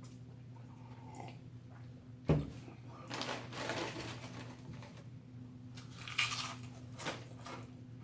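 A person eating a sandwich: irregular chewing and mouth noises, with a sharp thud about two seconds in, over a steady low hum.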